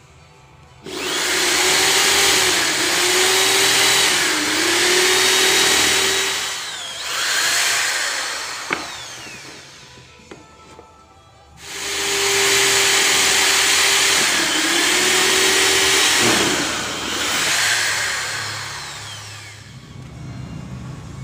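Corded electric drill boring into small wooden pegs: the motor runs at full speed twice for several seconds each, its pitch dipping as the bit bites into the wood, and winds down after each run. A sharp click sounds between the two runs.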